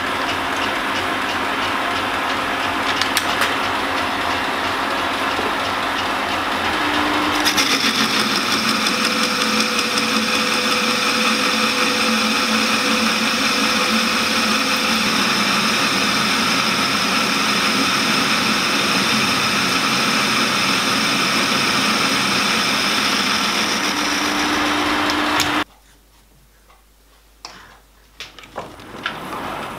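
Metal lathe running and turning a brass fixture ring, a steady machine sound that grows brighter about seven seconds in as the cut goes on. It stops suddenly about four seconds before the end, leaving quiet with a few light clicks.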